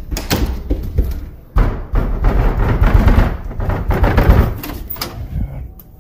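Household doors being opened and handled: a sharp knock just after the start, a loud stretch of rustling and bumping in the middle, and a few more clicks and knocks near the end as a pantry door opens.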